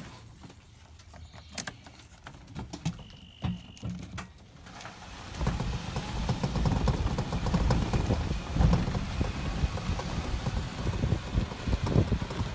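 A few faint, scattered hoofbeats of a gaited filly on a dirt track. From about five seconds in, a loud, steady rumble with dense small knocks takes over, the sound of a small vehicle driving over the rough dirt.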